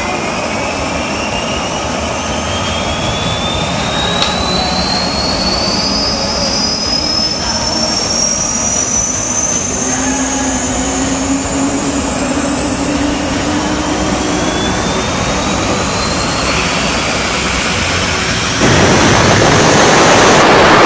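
Jet engine start-up sound effect played by a model aircraft's built-in sound module: a turbine whine rising steadily in pitch, then near the end a sudden jump to a louder rush of jet noise.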